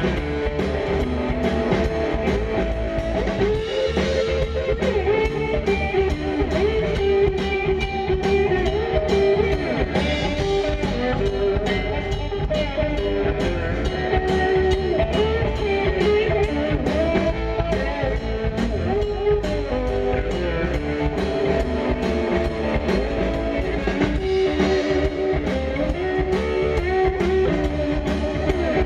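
Live blues band playing without vocals: electric guitar notes that bend up and down, over bass guitar and a steady drum-kit beat.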